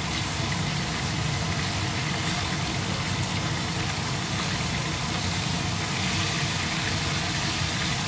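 Corn-flour-coated fish slices shallow-frying in hot oil in a stainless steel pan: a steady sizzle over a steady low hum.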